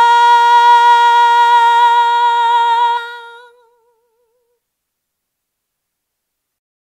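A woman singing unaccompanied, holding the final long note of a song. It turns to vibrato and fades out about three and a half seconds in.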